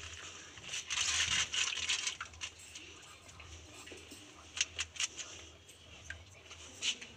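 Wet squelching and rubbing of soaked tamarind pulp pressed by hand through a wire-mesh strainer, then several sharp knocks about four and a half seconds in as the strainer is knocked against the aluminium pan.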